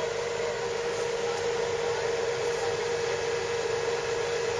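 Tractor engine running at a steady speed behind a tile plow set in the ground: an even hum with one constant tone over a noisy haze.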